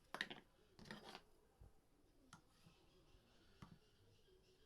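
Near silence with a few faint clicks and short scrapes of kitchen utensils: a spoon working in a bowl.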